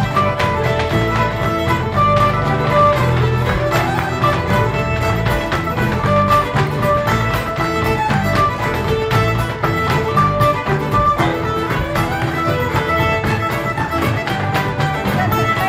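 Fiddle and mandolin playing a lively traditional folk tune live, the fiddle carrying the melody over a steady tapping beat.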